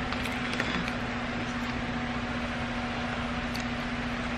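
Steady mechanical hum with one constant low tone, with a few faint clicks on top.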